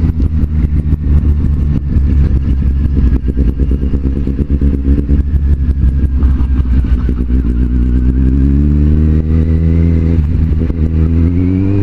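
Kawasaki Z750 motorcycle's inline-four engine running under way. Its pitch climbs from about seven seconds in as it accelerates, dips near ten seconds and rises again, with wind noise throughout.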